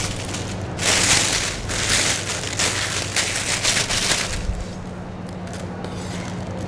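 Plastic piping bag crinkling and rustling as a nozzle is dropped into it and the bag is handled. The crinkling starts about a second in and dies down after about four seconds.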